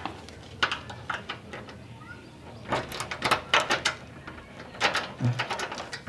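A key and the metal lever handle of a glass door clicking and rattling as the lock is tried, in a few short bursts, with a brief murmur near the end.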